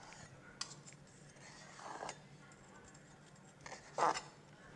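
A knife sawing through a seared steak's crust and scraping on a wooden cutting board, soft scrapes with a sharp click about half a second in and a louder scrape about four seconds in.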